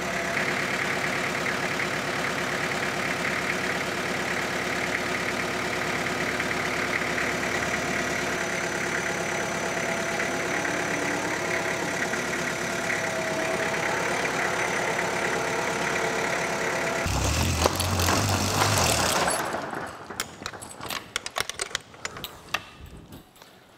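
Farm tractor engine running steadily, louder for a couple of seconds near the end and then stopping abruptly, followed by a few light clicks and knocks.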